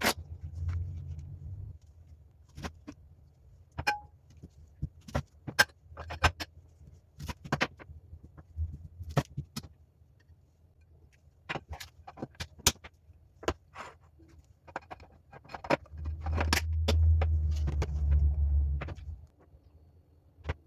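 Irregular sharp clicks and knocks of kitchen handling while pineapple is cut and packed away for the fridge, with a low rumble of handling noise near the start and a louder one near the end.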